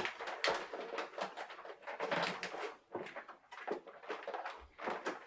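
Plastic toy packaging and wire twist ties being worked by hand: a run of small, irregular crackles and taps.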